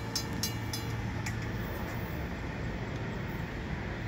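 Level-crossing warning bell ringing at about three strokes a second and stopping about a second in, as the crossing clears. Under it, the low hum of the departing MR90 electric multiple unit commuter train fades away.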